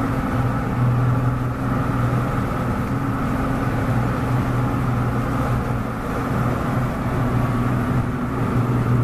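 Motorboat engine running steadily underway, a continuous low, even hum with hiss of water and wind over it.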